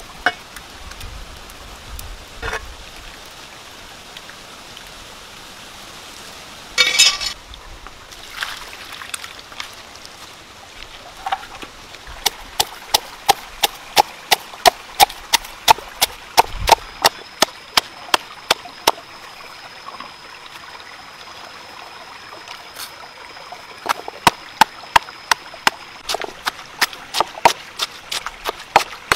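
Stone pestle pounding chillies and garlic in a stone mortar: sharp knocks about three times a second, starting some twelve seconds in, pausing briefly, then resuming. Before the pounding there is a steady low hiss with a few scattered clicks.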